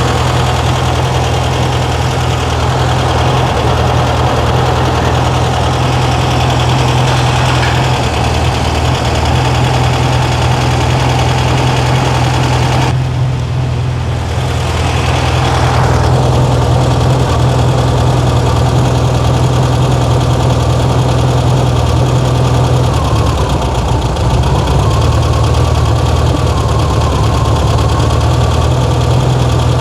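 Air-cooled VW flat-four engine of a 1968 Karmann Ghia idling steadily on freshly tuned EMPI 34 dual carburettors. About halfway through, the higher part of the sound drops away for a couple of seconds, and the idle runs on a little duller after that.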